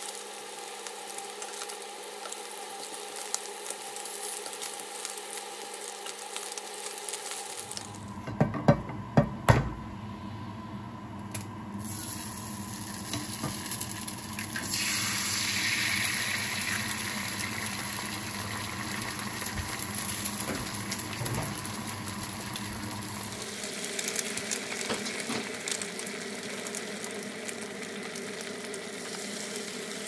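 Luncheon meat slices sizzling in a nonstick frying pan, with a wooden spatula scraping as they are turned. Partway through there are a few sharp knocks. Then eggs fry in hot oil: the sizzle rises as the raw egg drops into the pan and settles into a softer, steady frying.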